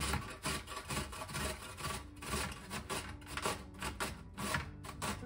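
Cucumber being grated on a stainless steel box grater, a quick run of scraping strokes about three or four a second.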